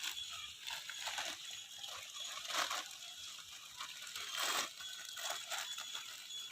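Parcel packaging being handled and opened: irregular rustling and crinkling, with louder crackles about two and a half and four and a half seconds in.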